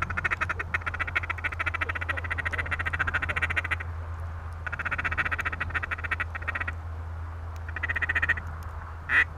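Mallard duck call worked in a fast feeding chuckle. It comes as three runs of rapid, even ticking chatter, the first about four seconds long and the last short, then a single short rising-and-falling note near the end. A low steady hum lies under it.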